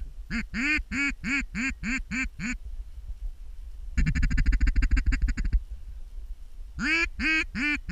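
A duck call blown in a run of quacks, about three a second. About four seconds in comes a fast, buzzing feed chatter, and near the end another run of quacks.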